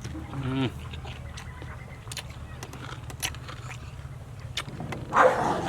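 Close-miked eating sounds of noodles being chewed: scattered wet mouth clicks, a brief hummed voice sound in the first second, and a louder noisy burst about five seconds in, over a steady low hum.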